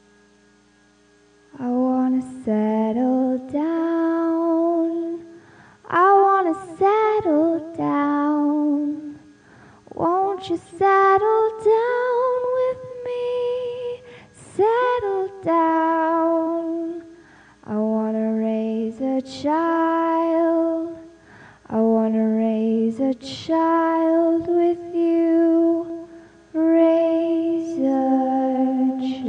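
A solo female voice singing a slow melody unaccompanied, in phrases of long held notes with short gliding turns, starting about a second and a half in.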